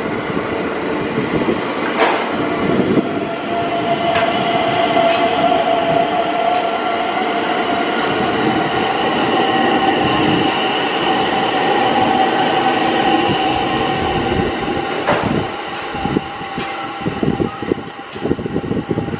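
JR West 227 series electric train passing through a station without stopping: a steady running rumble with wheel knocks over the rail joints and a steady high whine through most of the pass. Near the end the last cars clatter by and the sound eases off.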